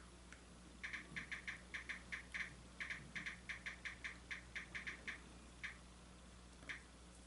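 A quick run of light tapping, about five taps a second for some four seconds, then a couple of single taps near the end.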